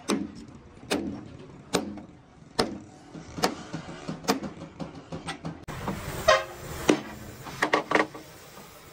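Hammer blows on metal, struck evenly about once a second, then a quicker run of several blows near the end.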